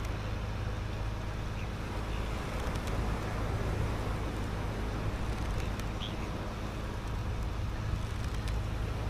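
A fishing boat's engine running steadily under way, a low, even drone with the rush of wind and water over it.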